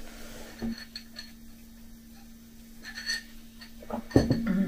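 Ceramic mug handled at a table: a few light clinks, then a louder knock about four seconds in as it is set down, under a faint steady hum.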